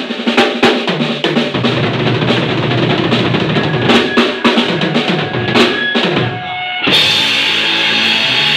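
Mapex drum kit playing a busy break on its own, a quick run of drum and cymbal hits, then electric guitar and bass come back in with the full rock band about seven seconds in.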